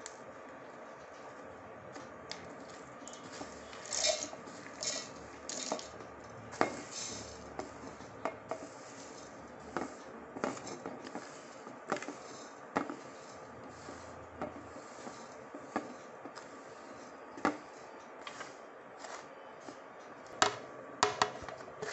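Whole dry spices (green cardamom pods, fennel and carom seeds) being swept by hand off a ceramic plate into a stainless steel mixer-grinder jar: irregular clicks and rattles of pods and seeds landing on the steel, with fingers scraping across the plate. The clatter comes in bursts, loudest about four seconds in and again near the end, over a faint steady hum.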